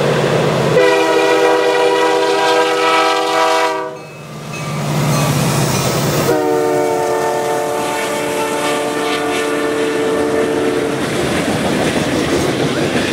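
Diesel locomotive air horn on CN train 105's lead unit, an SD75I, sounding two long blasts with a short gap between them as the train passes close by. After that comes the rumble and clatter of intermodal container cars rolling past on the rails.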